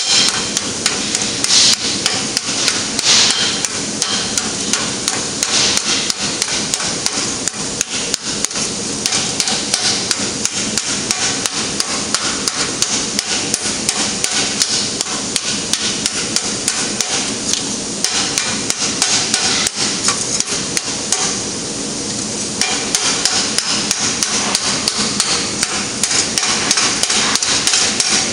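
Hand hammer beating a steel gauntlet plate over the horn of an anvil: a fast, steady run of metal-on-metal strikes, with a short pause about two-thirds of the way through.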